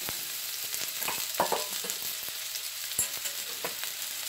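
Sliced onions sizzling in hot oil in a stainless steel skillet, a steady frying hiss, with a few light knocks and clinks, one at the start and others about a second and a half and three seconds in.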